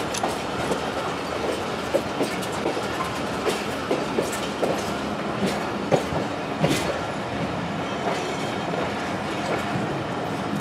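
Passenger train coach running along the track, a steady rumble with irregular wheel clicks and knocks on the rails, heard from the coach's open doorway.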